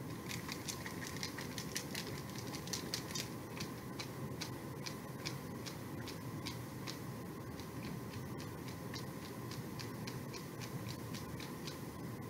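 Marker tip dabbing on a paper-and-chipboard layout: a run of light, irregular taps, several a second, thicker in the first half. A steady low room hum runs underneath.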